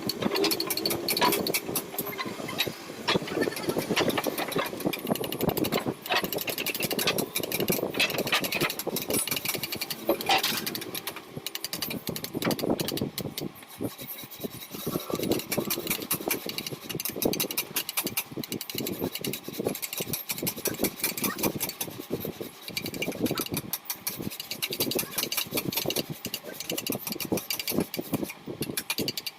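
Rapid, irregular clicking and scraping of carving tools working into wood, varying in loudness.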